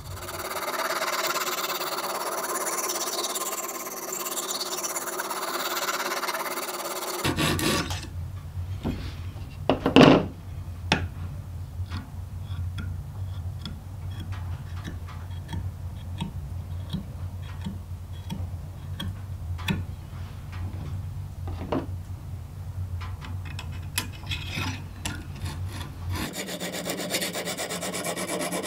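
Lansky extra-coarse hone stone rasping back and forth along the edge of a filleting knife held in the sharpener's clamp, working up a burr. The strokes run for the first seven seconds and start again near the end; in between are quieter handling clicks, one sharper knock about ten seconds in, over a low hum.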